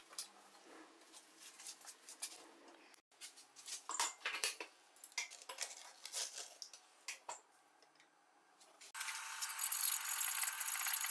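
Scattered light metallic clicks and taps of tongs handling a steel-foil-wrapped knife in an electric heat-treat oven, then from about nine seconds a steady hiss.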